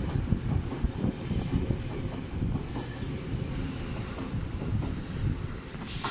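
Train running on rails: a steady low rumble of wheels and car body, with high wheel-on-rail squeals about a second in and again around three seconds in.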